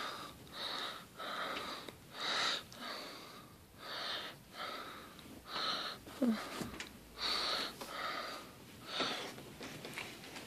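A person's faint breathing, soft hissy breaths in and out about once a second.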